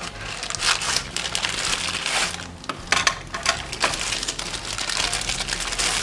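Plastic packaging bag crinkling and crackling as it is handled and slid out of a cardboard box, with dense, irregular crackles throughout.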